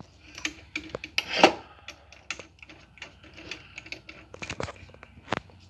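Small metal tools being handled by hand: a string of irregular light clicks and clinks, the loudest about one and a half seconds in and another near the end.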